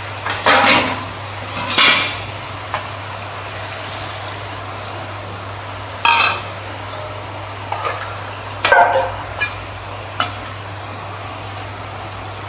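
A steel spatula and a steel bowl clink and scrape against an aluminium kadai of curry, about six separate clanks over a steady hiss.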